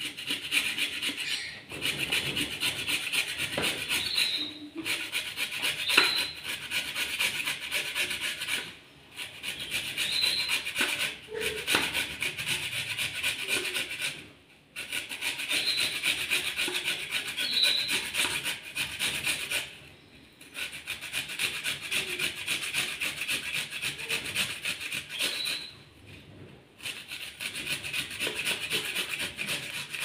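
Carrot being grated on a small metal hand grater: fast rasping strokes in runs of several seconds, broken by short pauses about every four to six seconds.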